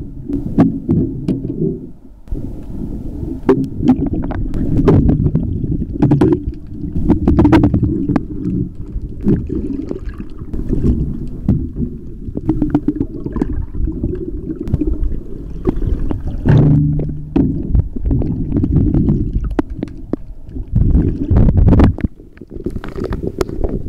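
Muffled underwater sound through a camera's waterproof housing: a low, churning rumble of moving water, broken by many sharp clicks and knocks.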